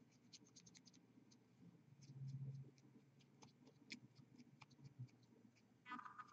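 Near silence with faint small clicks, ticks and scratches from a fine paintbrush and fingers working on a plastic miniature held by its base, with a cluster of quick ticks in the first second and a soft low sound about two seconds in.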